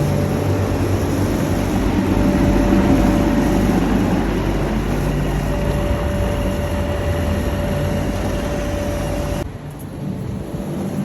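York outdoor air-conditioning condenser unit running: a steady hum from the compressor together with the rush of the condenser fan. The level drops sharply about nine and a half seconds in.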